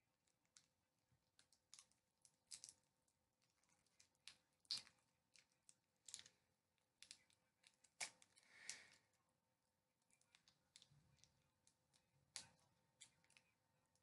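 Faint, scattered crinkling clicks of a plastic-wrapped Warheads sour candy being picked and pulled at by fingers and teeth, a wrapper that is hard to open.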